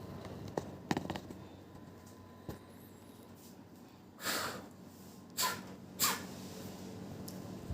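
Elderly person snoring in sleep: three short, noisy breaths about four, five and a half and six seconds in, the last two with a brief whistle, after a few faint clicks near the start.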